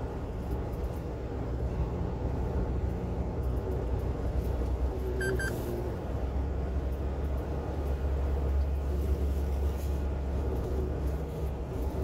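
Truck engine and tyre noise heard from inside the cab while driving: a steady low rumble that grows a little stronger about halfway through. A brief high double tone sounds once about five seconds in.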